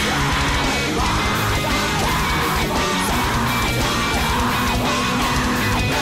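Mathcore band playing a loud, dense passage of distorted electric guitar and drums.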